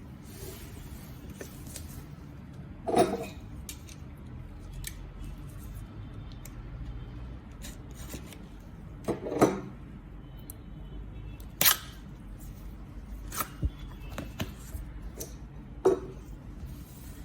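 Graphics card boxes being handled and unpacked: scattered knocks and clicks of packaging, a few seconds apart, over a steady low hum.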